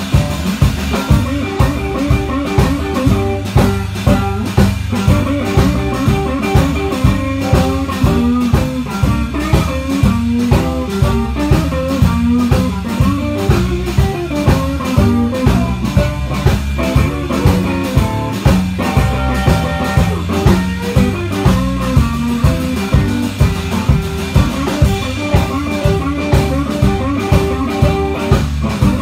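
A small blues band playing live, with electric guitar and a drum kit keeping a steady beat.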